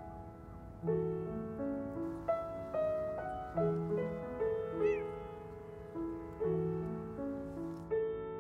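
Slow, gentle solo piano music, single notes and chords struck about once a second and left to ring. About five seconds in, a brief high-pitched call rises and falls above the piano.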